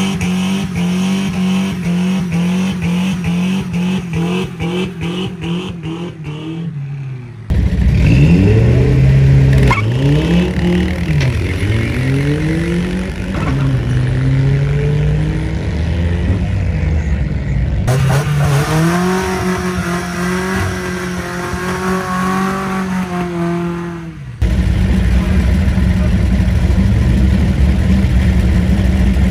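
Drag-racing mini pickup truck engines revving hard. First an engine is held at high revs with a fast stutter. After a cut, an engine pulls away with its revs rising and dropping at each gear change. Near the end, another engine revs high and steady. The sound changes abruptly at each edit.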